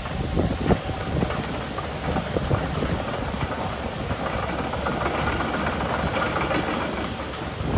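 Cat 312E excavator's C4.4 diesel engine running while the machine travels on its tracks, with the tracks' irregular knocking over the steady engine noise.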